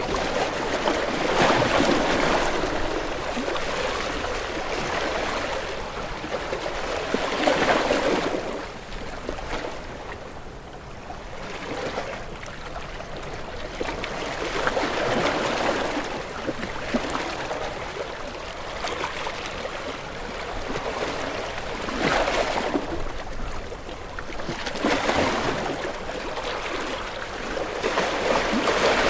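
Ocean waves washing in on a shore, the surf swelling and falling away every few seconds in a slow, uneven rhythm.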